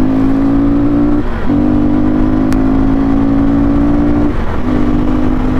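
KTM RC390's single-cylinder engine running steadily under way, with a constant droning note that breaks off briefly twice, about a second in and again after four seconds.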